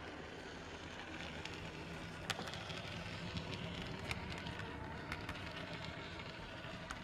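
Small electric motor of an OO-gauge model tram layout running steadily with a low hum, with scattered light clicks from wheels on the model track, one sharper click about two seconds in.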